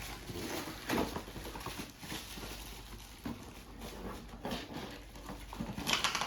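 Cardboard and plastic packaging being handled and opened: scattered rustles and small knocks, with a louder crinkling rustle near the end.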